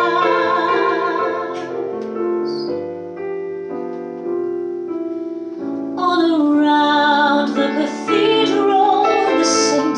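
Woman singing a slow ballad with piano accompaniment. A held note with vibrato opens, the voice falls away for a few seconds in the middle leaving the piano, and singing resumes about six seconds in.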